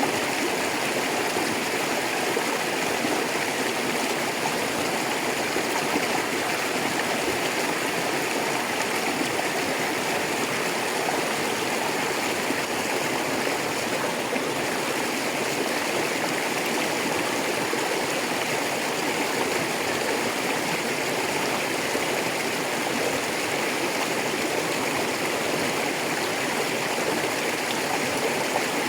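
A shallow rocky river rushing and burbling over stones in a steady, unbroken flow.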